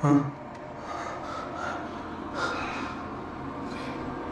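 A person breathing hard, with a few audible breaths about halfway through and near the end, after a short voiced sound at the very start.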